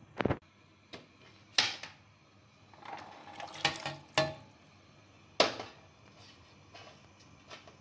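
Dried herbs and mushrooms tipped from a stainless bowl into a stainless pot of water: a few sharp metal knocks and a splash about three to four seconds in.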